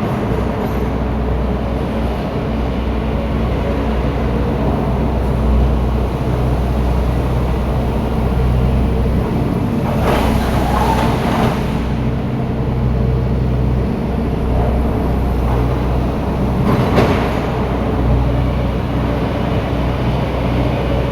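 Heavy machinery engine running steadily at a low, even pitch, with two brief rushes of noise, one about halfway through and another a few seconds later.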